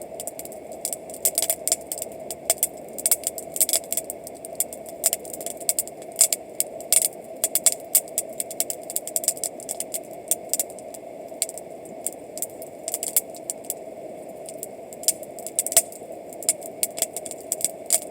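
Wood campfire crackling: many irregular sharp pops and snaps over a steady background hiss.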